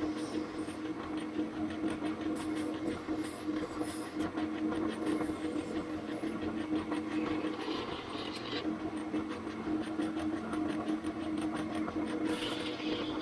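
An electric power tool's motor running steadily with a constant hum. Brief higher, hissy scraping comes in twice, at about eight seconds and again near the end.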